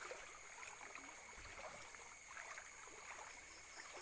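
Faint, steady rush of a flowing river, with a few small trickling water sounds.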